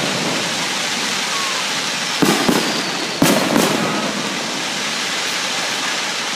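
Aerial fireworks going off: two pairs of sharp bangs, about two and three seconds in, over a steady rushing noise.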